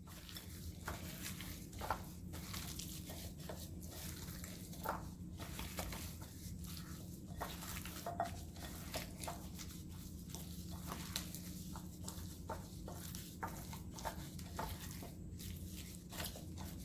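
Hands rubbing powdered seasoning into raw chicken drumsticks: irregular soft squishing and small clicks, over a steady low hum.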